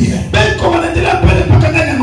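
A man's voice preaching loudly through the church sound system, over background music with a low, pulsing beat.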